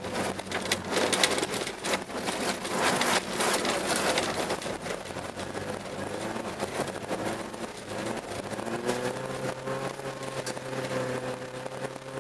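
Car engine heard from inside the cabin while driving on a snowy ice track. For the first few seconds a loud crackling rush of tyres on loose snow drowns it out; about two-thirds of the way in the engine revs climb and then hold steady.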